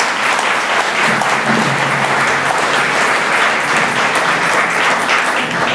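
Audience applauding, a dense steady clapping that begins to die away near the end.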